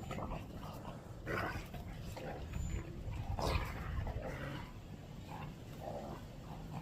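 American bully dog vocalizing in a series of short whines and grumbles, several times over a few seconds.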